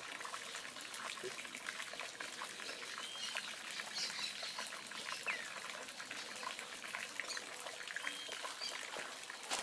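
Steady trickling water with scattered small ticks, and a few brief high chirps about three, five and eight seconds in.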